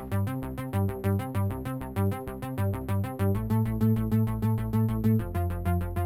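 Background electronic music: synthesizer with a quick, even run of short notes over a bass line.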